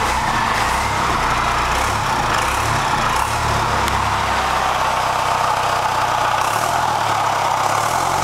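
Truck engine idling steadily, a continuous low rumble.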